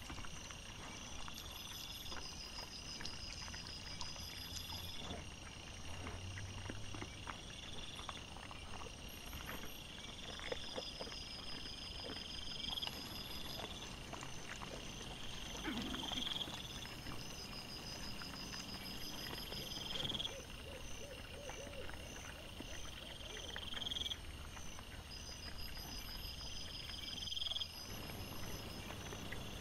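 Night insects calling in an evenly repeating chorus: chirps every few seconds and short rapid pulse trains, overlapping one another. Under them, scattered soft rustles and crunches of wild boar rooting and feeding in leaf litter.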